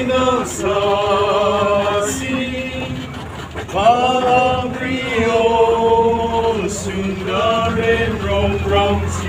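A group of men's voices singing together in long held notes over the low rumble of a moving bus.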